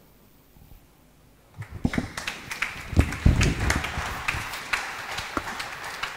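Quiet for about a second and a half, then a room of people sitting back down after standing: chairs knocking and scraping amid a rustle of movement, with heavy low thumps about two and three seconds in.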